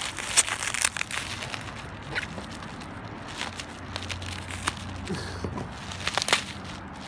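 Plastic bubble wrap crinkling and crackling as it is handled, cut with a knife and pulled off a small cardboard box, with sharp crackles throughout, the loudest about half a second in and again near the end.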